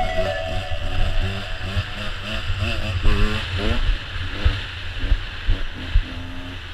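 Enduro motorcycle engine being ridden on a rough dirt trail, its pitch rising and falling quickly as the throttle is opened and closed, with low thumps now and then.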